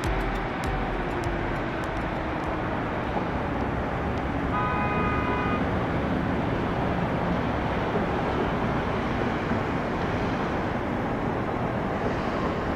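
Steady distant rumble of airport and road traffic, with a single horn toot lasting about a second, about five seconds in.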